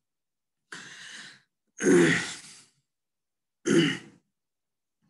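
A man's non-speech vocal sounds: a soft breathy exhale, then two short, louder vocal noises about two seconds apart.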